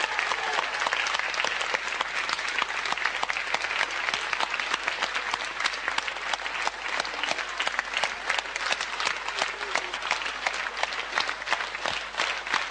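Studio audience applauding at the end of a song: dense applause that thins toward the end into more separate, distinct claps.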